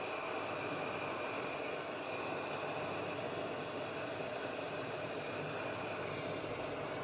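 Steady rushing, fan-like blowing noise with a faint high whine running through it, unchanging throughout.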